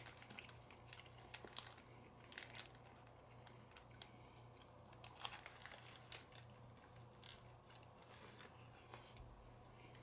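Faint crinkling and crunching of someone eating a snack, with scattered small crackles, over a low steady hum.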